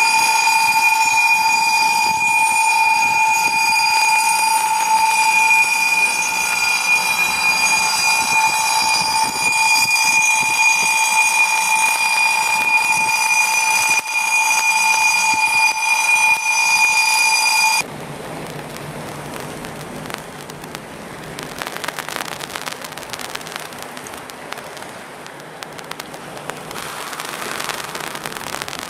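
A loud, steady high-pitched tone with several overtones holds, then cuts off suddenly about 18 seconds in, leaving a quieter, even rushing noise.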